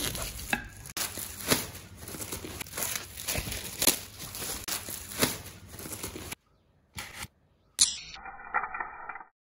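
Plastic wrap crinkling and tearing as it is peeled off a new stretched canvas, a run of crackles lasting about six seconds that cuts off suddenly. A few short sounds follow near the end.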